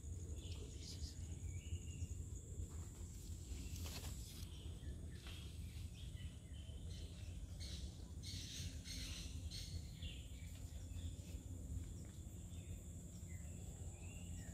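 Swamp rainforest ambience: a steady high insect drone with scattered bird chirps over a low rumble.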